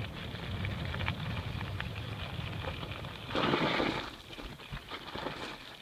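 Wind rushing over the camera's microphone as a mountain biker rides, with a louder rush a little past halfway, then quieter.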